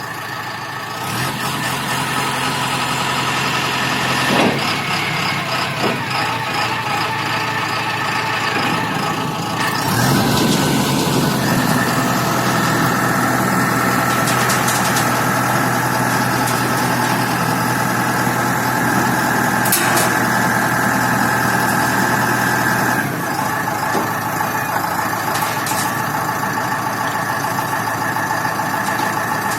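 A self-loading concrete mixer truck's engine running steadily. It speeds up about a third of the way in and drops back lower about three-quarters through, with a brief knock or two.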